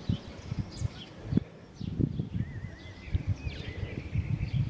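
Small birds chirping and twittering, with a wavering song about halfway through, over irregular low thumps and rustling close to the microphone.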